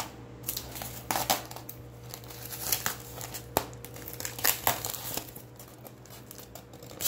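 Plastic packing tape being peeled and crinkled off a styrofoam block by hand: irregular crackling and crinkling with sharper tearing snaps here and there.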